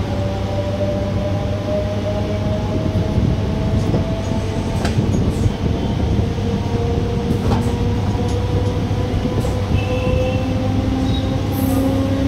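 A MEMU electric train accelerating, heard from on board: the traction motors give a whine that rises slowly in pitch over a steady rumble of wheels on rail. A couple of sharp clicks come from the wheels crossing rail joints.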